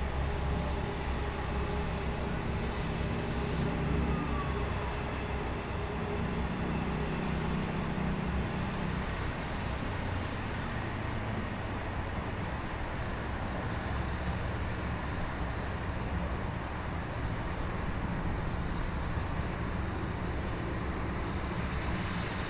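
Steady low rumble of distant city traffic, with a low hum that swells briefly about six to nine seconds in.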